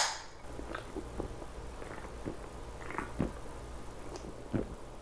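The hiss of a Kirin Ichiban beer can's ring-pull, dying away in the first moment, then faint irregular gulps and clicks as the beer is drunk from the can.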